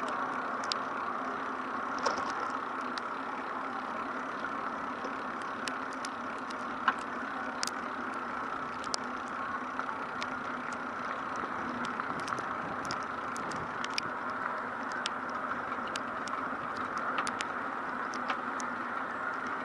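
Steady street ambience in the rain: an even hiss of city noise, with scattered sharp ticks throughout.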